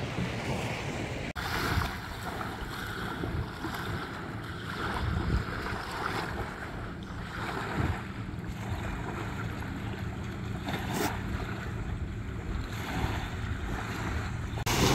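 Small waves lapping and washing up onto a sandy shore in repeated swells, with wind buffeting the microphone.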